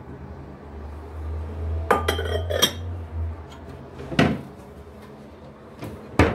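Metal kitchenware clinking and knocking: a quick cluster of ringing clinks about two seconds in, a single knock a couple of seconds later and a sharper knock near the end, over a low steady hum.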